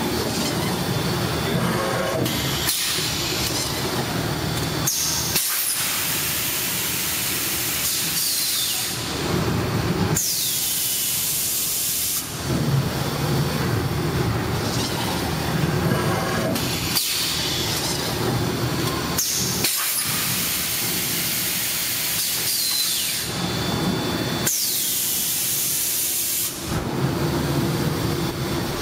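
Fully electric extrusion blow molding machine cycling, its machine noise broken by long hissing blasts of compressed air. The pattern repeats about every fourteen seconds, with a blast that ends in a falling whistle and a sudden restart of the hiss about two seconds later.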